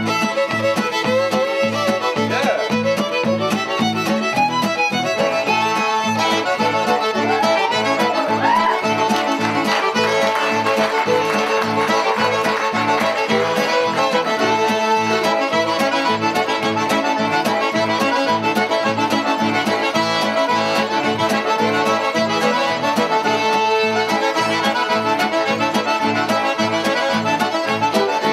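Background music: an upbeat tune on fiddle and accordion over a steady beat.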